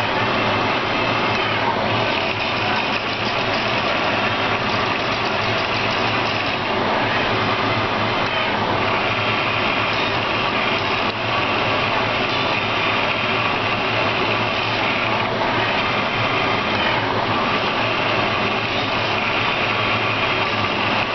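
Hydrogel 3D printer running: a steady mechanical hum with a higher whine that changes every few seconds as the print head's moves change.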